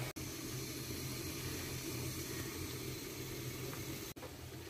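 Steady hiss and faint bubbling of an eggplant and rohu fish-roe mixture simmering with a little water in a pot.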